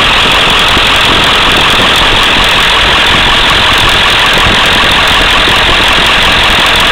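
Ford 7.3 L Powerstroke turbo-diesel V8 idling steadily, heard close up in the open engine bay.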